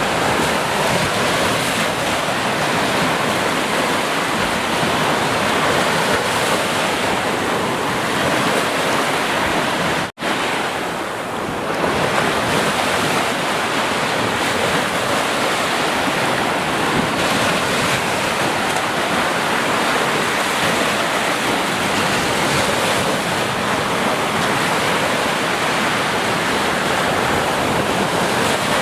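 Steady rush of ocean waves breaking and washing on the shore. About ten seconds in, the sound cuts out for a split second and then resumes.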